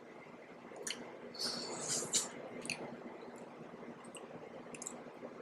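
Soft, wet mouth sounds of someone eating fufu with okra soup: chewing and lip smacks, with a few small squishy clicks clustered about a second and a half to two seconds in.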